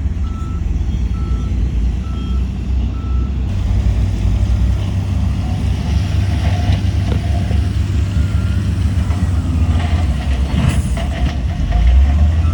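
Heavy diesel earthmoving machinery running with a deep, steady rumble, while a reversing alarm beeps at one pitch about once a second for the first three seconds or so, then stops. A short hiss sounds near the end.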